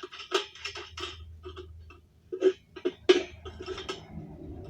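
Metal hand tools clinking and clanking against metal in a run of irregular sharp knocks, loudest about two and a half and three seconds in, as the spare tire's bumper-mount fastenings are worked loose.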